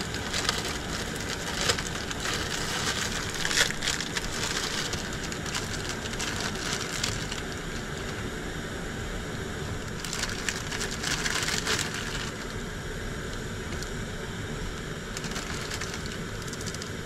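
Plastic instant-ramen wrapper crinkling and a dry noodle block crunching as it is broken up by hand, in uneven bursts of crackling, with the loudest stretches around three to four seconds in and again around eleven to twelve seconds.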